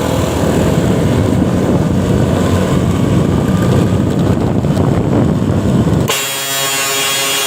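Loud, steady vehicle noise, then about six seconds in a truck-style 'klakson Fuso' air horn blares on one steady chord for about a second and a half and cuts off sharply.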